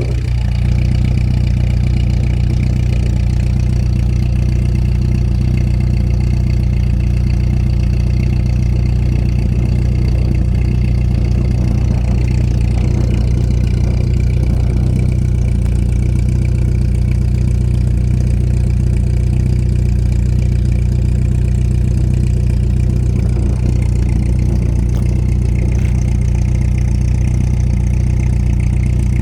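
1989 Volkswagen Jetta's 1.8-litre four-cylinder engine idling steadily through a louder aftermarket exhaust. This is the smooth early phase of an intermittent rough-idle fault.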